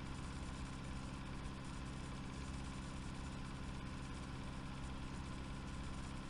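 Faint steady low hum with an even hiss, unchanging throughout.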